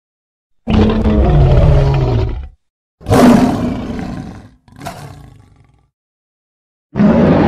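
Kaiju monster roar sound effects built from lion-like roars: four separate roars with silence between them. The first drops in pitch toward its end, the third is shorter and quieter, and the last begins near the end.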